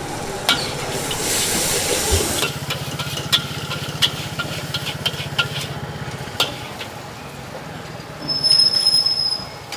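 Mee goreng stir-frying in a wok over high heat: a burst of sizzling hiss, then scattered sharp clacks of the spatula against the wok over a steady low hum. Near the end a high whistling tone, the loudest sound, lasts about a second.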